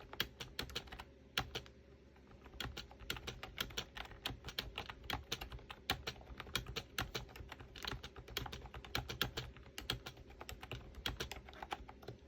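Typing on an Ajazz 308i retro mechanical keyboard with round keycaps: a soft, uneven patter of key clicks, several a second, with a brief pause about two seconds in.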